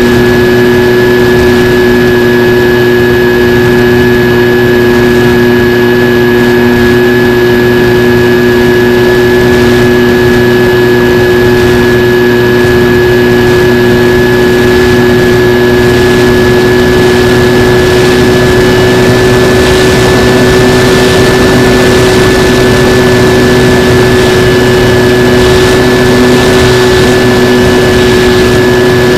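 Skywalker X-8 flying wing's pusher motor and propeller running at steady throttle in flight, recorded by the onboard camera: a steady hum with a high whine that holds its pitch, over wind rush.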